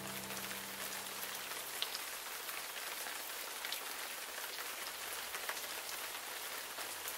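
Steady patter of rain, an even hiss with scattered small ticks, as a relaxing background ambience. The last notes of a soft musical chord fade out in the first second or two.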